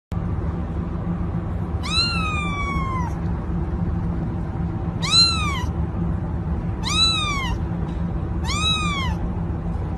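Ginger kitten meowing four times, high calls that rise and fall in pitch, the first one the longest, over a steady low hum.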